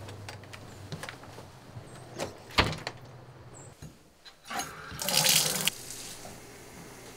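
A sharp knock about two and a half seconds in. Then a shower is turned on at its chrome valve handle, and water sprays for under a second before cutting off abruptly.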